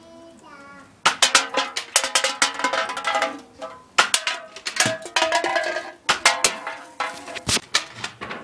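A fast run of sharp metallic clanks and knocks: shots striking aluminium drink cans and cans being knocked over onto a wooden table, each hit followed by a brief ringing of the can.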